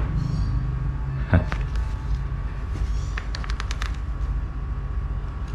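A sheet of paper being handled and folded: a crisp crinkle about a second and a half in and a quick run of rustles and crackles around three seconds, over a steady low background hum.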